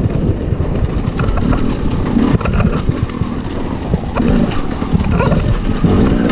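Husqvarna TE300 two-stroke enduro motorcycle engine running at low revs, with several short throttle blips, as the bike is ridden slowly over rough, rocky trail.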